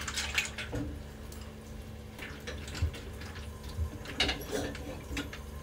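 A spatula stirring penne into a creamy soy milk and cream sauce in a frying pan: soft wet sloshing with scattered light clicks of pasta and spatula against the pan.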